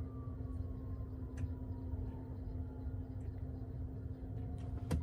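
Steady low hum of a car idling, heard inside the cabin, with a faint slowly falling tone and a few light ticks; one sharp click near the end.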